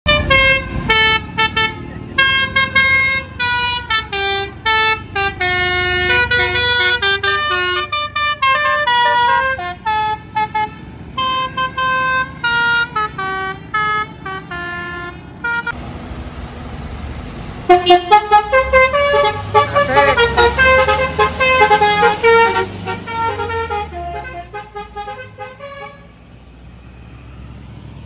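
Basuri telolet horn, a set of musical air-horn trumpets on a passing vehicle, playing a fast koplo-style melody note by note over a low engine hum. About halfway through the tune breaks off briefly for engine and tyre noise, then starts again and fades away.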